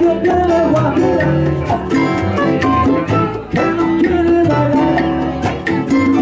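A small live band playing: acoustic guitar, a saxophone holding melody notes, upright bass and hand drums, with regular percussive strikes.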